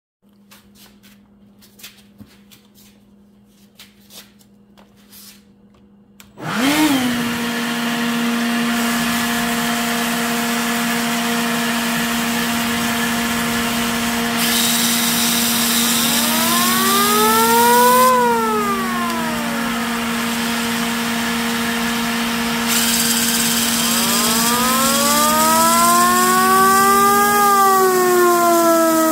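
Electric leaf blower switching on after a few faint handling clicks and running with a steady whine, blowing into a home-made siren rotor spun by a cordless drill. The siren wails, its pitch rising to a peak and falling away twice as the drill speeds up and slows down.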